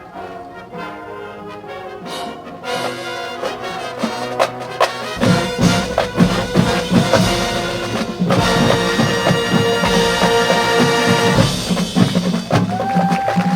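Marching band of brass and drums playing: softer at first, then building to loud full-band playing with drum hits from about five seconds in and sustained brass chords after that.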